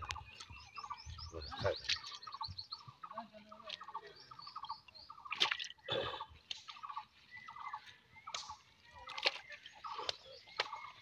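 Birds calling in a quick, evenly repeated series of short notes, with a few sharp clicks and slaps from the cast net and fish being handled.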